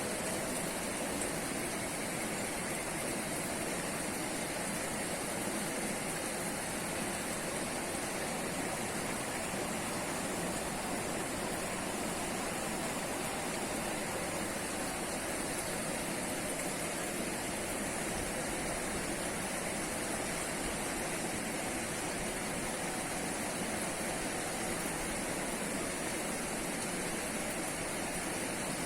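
Steady rush of a fast-flowing river over rocks, an even hiss with no breaks.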